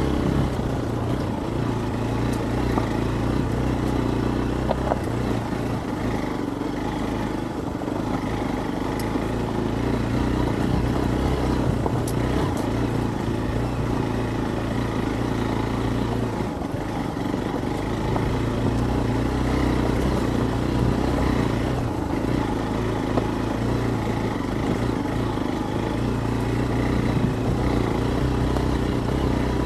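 Hero Xpulse 200's single-cylinder four-stroke engine running at low revs as the bike is ridden off-road, the pitch shifting a little every few seconds as the throttle is worked. A few faint clicks are heard over it.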